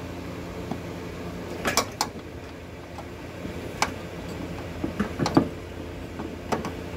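Scattered metallic clinks and taps, a few at a time, as a bolt and steel nerf-bar bracket are worked into place and the bolt is started, over a steady low hum.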